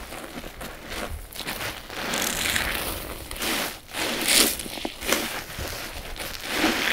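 Wet sponges squeezed by hand, loaded with a thick powder paste: a run of crackling squelches, one squeeze after another, the loudest a little past halfway.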